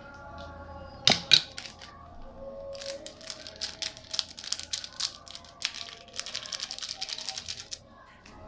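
Quiet background music under kitchen work noises: two sharp knocks about a second in, then a fast run of clicking and crunching until near the end.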